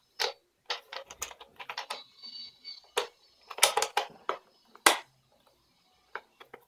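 Irregular clicks and knocks from a plastic Nerf Modulus blaster being handled while its mechanism is screwed back together. The loudest knocks come about four and five seconds in.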